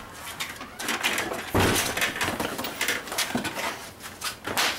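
A scuffle between two people: shuffling and clatter, with a heavy thud about a second and a half in as a body goes down, and a sharp knock near the end.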